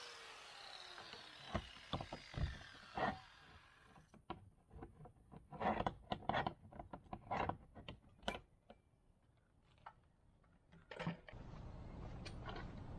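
Scattered light metal clicks and clacks of a slide-bolt latch and padlock being handled and worked. A fading hiss stops suddenly about four seconds in.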